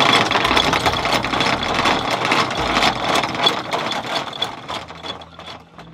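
Electric anchor windlass running, the anchor chain rattling rapidly over the gypsy as it is paid out. The clatter tapers off over the last couple of seconds.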